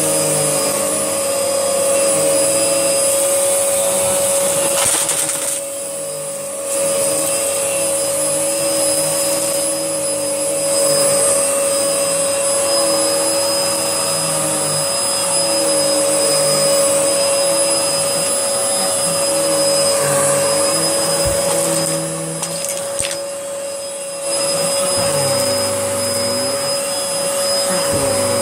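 Miele Dynamic U1 upright vacuum cleaner running steadily with a high whine as it is pushed over a test mess of cereal, dog biscuits and dirt; its pitch wavers with the strokes, and it drops briefly in level twice, about six seconds in and again a little over twenty seconds in.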